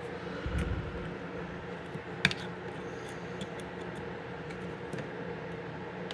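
Small clicks and taps of multimeter test leads and a tweeter being handled while trying to take a resistance reading, with one sharper click about two seconds in, over a steady low hum.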